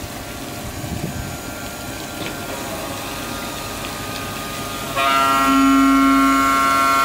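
Water-cooled cutter on a robotic CNC arm milling a marble block: a steady hiss of spraying water with a faint machine hum. About five seconds in, a loud held music chord cuts in over it.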